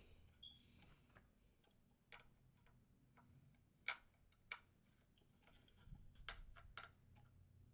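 Faint, scattered clicks and ticks of a screwdriver working at a screw in a stock Bosch ECU's case, where the screw spins without backing out. The loudest click comes about four seconds in, and a quick run of clicks follows near the end.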